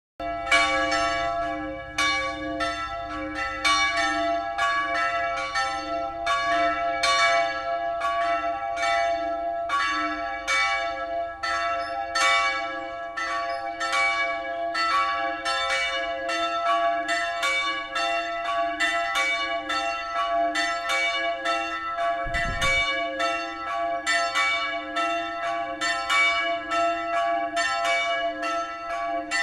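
Full peal of two bronze church bells cast by Grassmayr, tuned to C-sharp and E, ringing together. The strokes come about two to three a second in an uneven, overlapping rhythm, each tone ringing on beneath the next.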